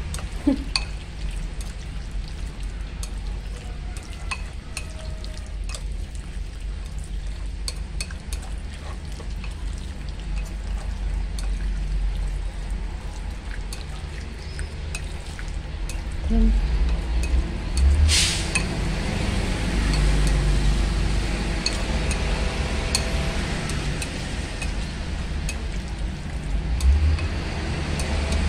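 Chopsticks stirring marinated meat in a ceramic bowl, with frequent light clicks and clinks of the chopsticks against the bowl over a steady background hiss; one louder brief noise about two-thirds of the way through.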